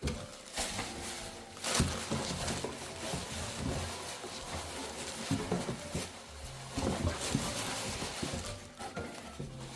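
Easter grass rustling and crinkling with irregular small crackles as handfuls are stuffed into a shipping box.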